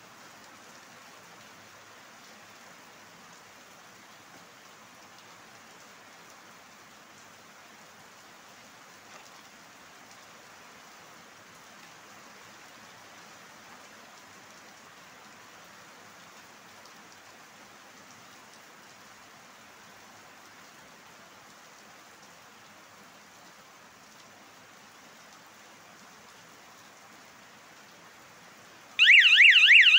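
A faint steady hiss, then near the end an electric bicycle horn suddenly switches on, sounding a loud siren tone that warbles rapidly up and down.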